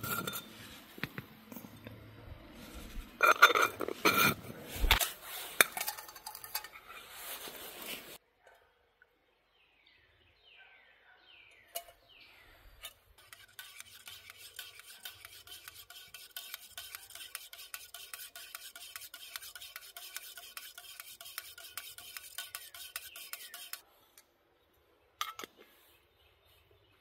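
Metal camp cookware clattering, with a few sharp knocks as a small metal cup and lid are handled. After a pause, a spoon stirs steadily in the metal cup for about ten seconds with a rapid, even scraping, then stops suddenly.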